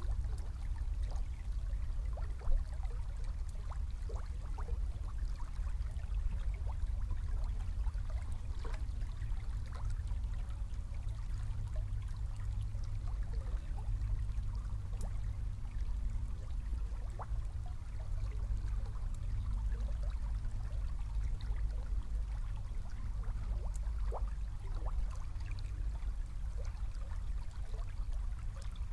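Small river flowing past a reedy bank: steady running water with many small gurgles and plinks over a low, steady rumble. There is one brief louder pop about two and a half seconds in.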